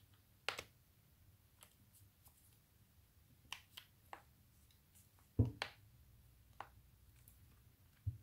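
Scattered, irregular plastic clicks from a Bosch PSR 1800 LI-2 cordless drill driver as it is handled and its controls are worked. A duller knock about five seconds in is the loudest. The motor is not running.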